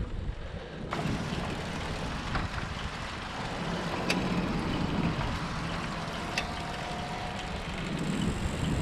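Steady rushing wind and tyre noise from a road bicycle riding along pavement, with a few faint clicks. The sound changes abruptly about a second in.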